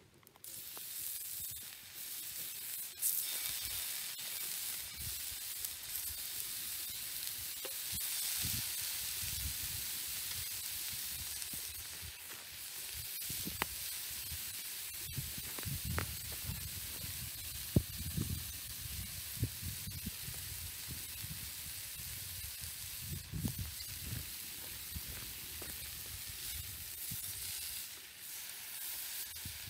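Thick-cut bacon slabs sizzling steadily on a hot black steel griddle plate over a campfire. A few sharp clicks and knocks come through the sizzle.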